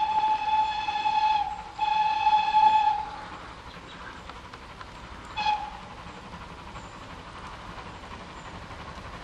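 Whistle of GWR 94xx-class pannier tank steam locomotive 9466. It gives one steady blast, breaks briefly, and blows again until about three seconds in. A short toot follows a couple of seconds later. The rest is the quieter running noise of the approaching locomotive.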